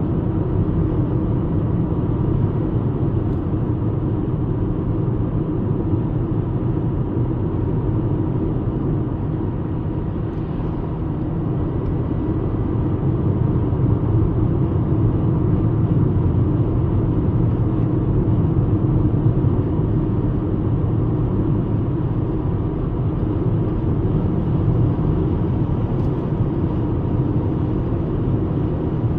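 VW Golf Mk5 (75 hp) driving at a steady cruise: a steady rumble of engine and tyres on the road, swelling a little about halfway through.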